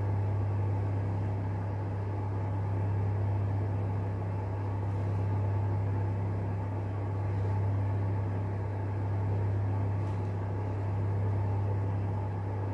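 Steady low hum of a room heater running, its level rising and falling slightly every few seconds.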